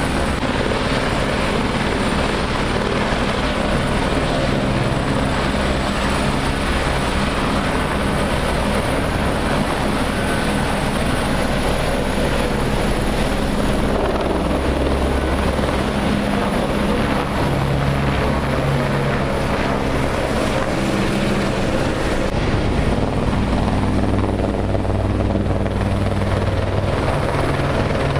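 Eurocopter AS350 Écureuil light turbine helicopters running at close range: a steady turbine whine over the beat of the main rotor. The sound changes about two-thirds of the way through.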